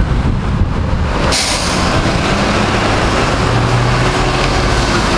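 City buses running in street traffic: engines rumbling, with a sudden loud hiss about a second in that carries on behind the engine noise.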